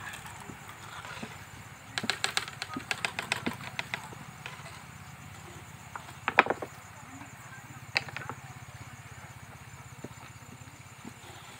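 Perforated metal ladle clinking and knocking against a large iron kadai as samosas are stirred and scooped out of hot oil. A quick run of clinks comes about two seconds in, then a single sharp knock around six seconds and another at eight, over a steady low hum.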